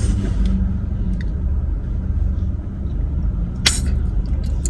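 Steady low rumble of a car in motion, heard from inside the cabin, with one sharp click about three and a half seconds in and a few light ticks near the end.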